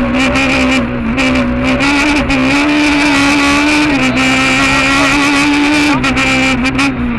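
Peugeot 306 Maxi kit car's 2.0-litre four-cylinder engine running at high revs, heard from inside the cockpit. Its pitch stays high and steps down and back up a few times.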